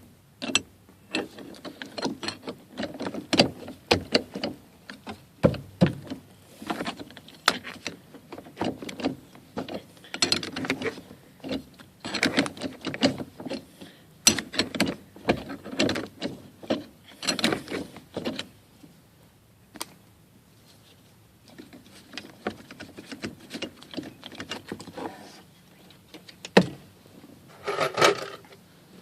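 Hand work on a minivan's interior trim: irregular plastic clicks, knocks and rubbing as panels and fittings are handled and worked loose, with a short lull partway through.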